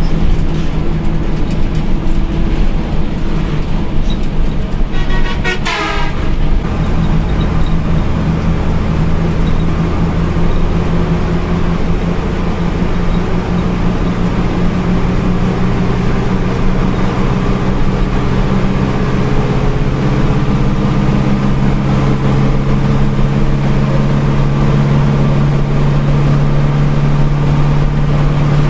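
Hino 1J bus's diesel engine running under way, a steady drone whose pitch climbs gradually through the second half as it gathers speed. A horn toots briefly about five seconds in.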